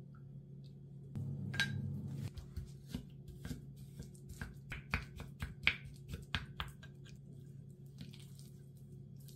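Wooden spoon stirring a thick chili-paste seasoning in a glass bowl, knocking and scraping against the glass in an irregular run of sharp clicks, about two or three a second. It follows a short pour of soy sauce into the bowl about a second in, over a low steady hum.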